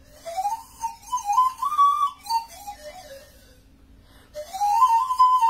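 Panpipes played as a short breathy tune: a phrase that climbs and falls back down, then after a brief pause a second phrase that rises to a held note.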